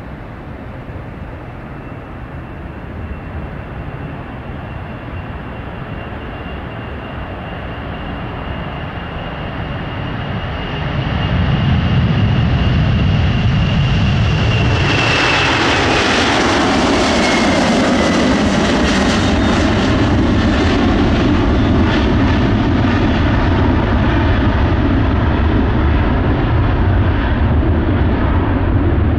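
Boeing 747 freighter's four jet engines at take-off power: a steady high whine over a deep rumble, getting much louder about eleven seconds in. As the jet passes, the whine drops in pitch and a crackling roar follows as it climbs away.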